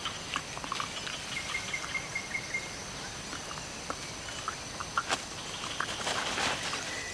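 Tropical forest ambience: a steady high insect drone, a short run of faint bird chirps between about one and a half and two and a half seconds in, and scattered soft clicks and rustles.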